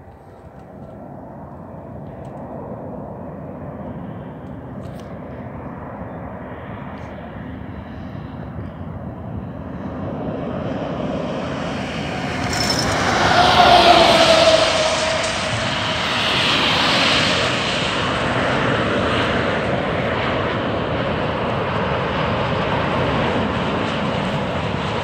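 Airbus A350-900's Rolls-Royce Trent XWB turbofan engines on final approach, growing louder as the jet nears. The sound peaks a little past halfway as it passes low overhead with a falling whine, then settles into a steady rumble as the jet descends toward the runway.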